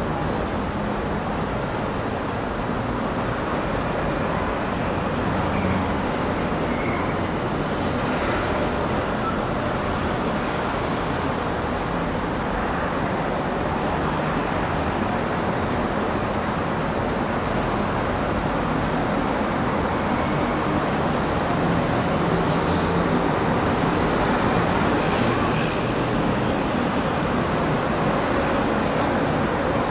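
Steady outdoor background rumble and hiss, like distant road traffic, with no distinct events.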